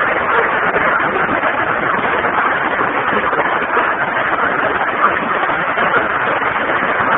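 Floodwater rushing and churning through a street in a steady, loud rush.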